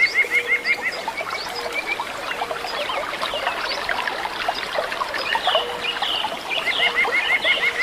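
Birds chirping, many short calls overlapping, with a fast, evenly repeated trill at the start and again near the end.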